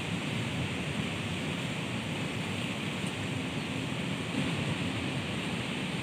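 Strong wind blowing through the leaves of trees: a steady rushing noise.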